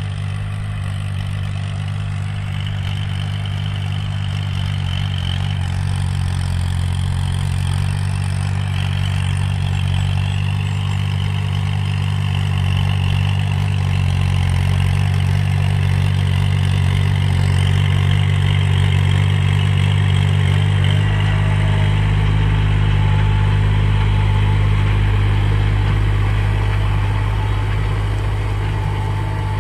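Kubota compact tractor's diesel engine running steadily under load while it drives a rear rotary tiller through paddy stubble. It grows louder as the tractor comes close, easing off slightly near the end.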